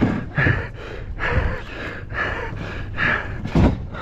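A man breathing hard in loud gasps, about one breath a second, from the exertion of fighting a large yellowfin tuna on a spinning rod. A few short low thumps sound between the breaths.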